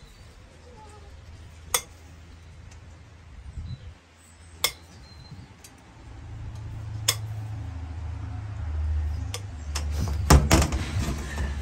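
Sharp clinks and clicks spaced a few seconds apart while a donkey's overgrown hoof is pared with a hoof knife, with a quick cluster of them near the end. A low rumble comes in about halfway.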